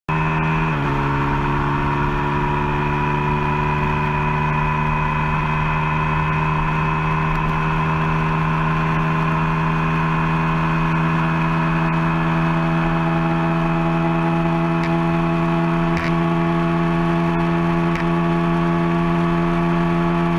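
KTM RC 390's single-cylinder engine at full throttle near top speed, with steady wind rush. Under a second in, the pitch drops once as it shifts from 5th into 6th gear. The note then climbs very slowly as the bike nears its 190 km/h top speed.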